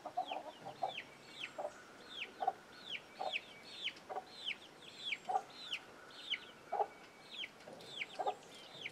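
Chicks peeping, a steady stream of short peeps falling in pitch, several a second, mixed with a hen's low clucks about once a second.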